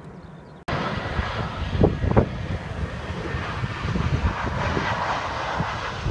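Jet engines of an Air Berlin Airbus A320-family airliner on final approach, a steady rushing jet noise that starts suddenly under a second in. Wind buffets the microphone in low rumbles throughout, with two sharp gusts about two seconds in.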